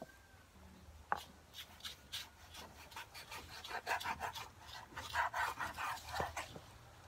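Kitchen knife slicing beef innards on a wooden cutting board: irregular scraping strokes, with a sharp tap of the blade on the board about a second in.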